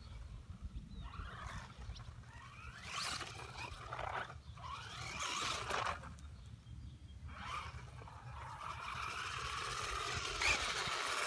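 Wltoys A959-B electric RC buggy driving on concrete: its motor whines up and down in pitch as it accelerates and lets off, in several short runs, growing louder near the end as the car comes closer. A steady low rumble runs underneath.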